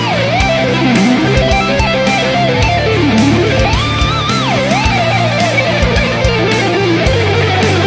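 Background rock music: an electric guitar plays a lead full of bending, sliding notes over a steady low rhythm and a beat.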